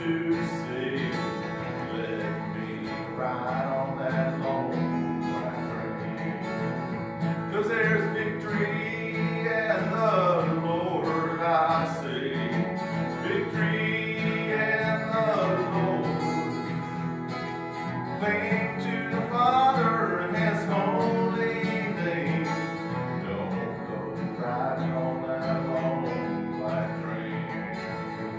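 Acoustic guitar played live, with a man singing a country song over it.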